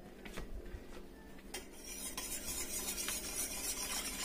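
Metal whisk stirring quickly against a stainless steel pan as dry gumbo base is shaken in and mixed into cold water. A couple of light taps come first, then the rapid scratchy whisking starts about a second and a half in and keeps going.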